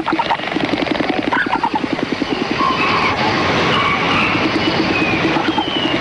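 Male Andrew's (Christmas Island) frigatebird in courtship display, clattering its bill in fast rattling runs that come and go. Thin falling whistles sound over the rattle.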